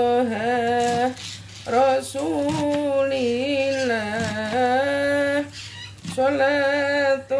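A woman singing a selawat, an Islamic devotional chant, unaccompanied, in long held, wavering notes with two short breaks between phrases.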